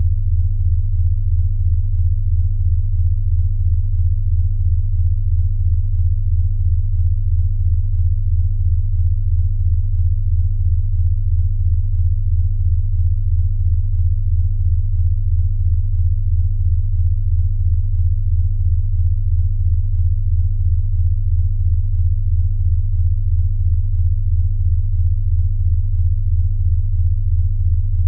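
Low electronic sine tone of a sound-therapy track for snoring, made for listening on headphones, pulsing evenly about twice a second.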